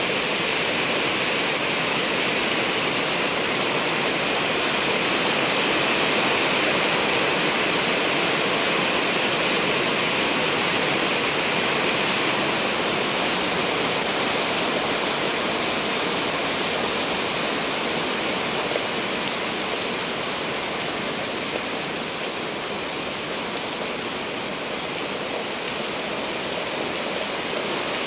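Steady rain falling on wet pavement.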